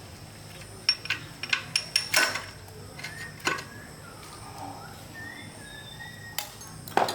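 Metal tools and engine parts clinking and knocking against each other in sharp, separate strikes: a quick run of about seven in the first couple of seconds, then a few more spaced out later.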